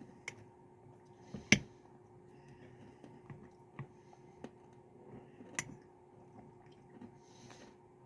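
Quiet eating sounds: a spoon clicking against the ice cream container with soft mouth noises, a few sharp clicks, the loudest about a second and a half in.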